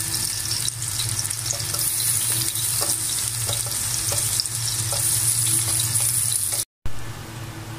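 Sliced onions sizzling in hot oil in an aluminium pot, a steady frying hiss. The sound cuts out for a moment near the end and comes back a little quieter.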